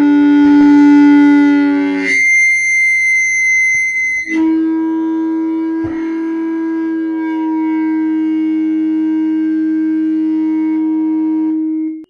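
Stereo audio feedback: a loud sustained low howl that jumps to a high whine about two seconds in, then drops back to a steady low howl about two seconds later.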